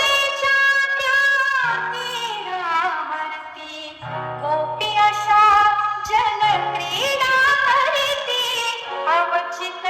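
Bollywood-style song with a female singer, played loud over a DJ sound system, the sung melody sliding over sustained low bass notes.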